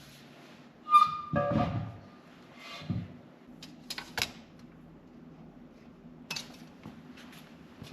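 Metal handling: a sharp clank with a ringing tone about a second in, a brief rattle, then a few scattered sharp clicks, over a low steady hum.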